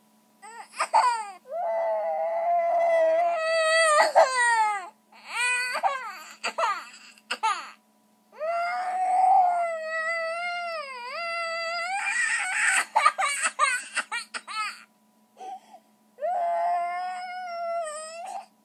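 A baby crying in long wails, one after another, each lasting a second or two with brief pauses between, the pitch wavering and sagging in places.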